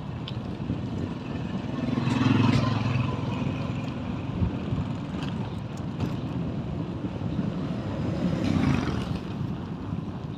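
Motor-vehicle noise: a steady low rumble, with two vehicles passing close, the first about two seconds in and the second near the end.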